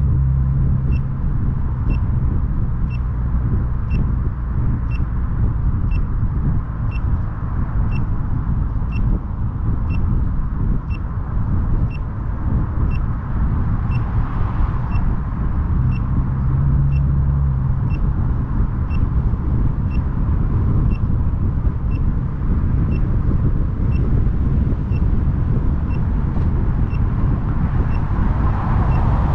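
Car driving, with a steady low rumble of engine and road noise, and a short high-pitched beep repeating about once a second.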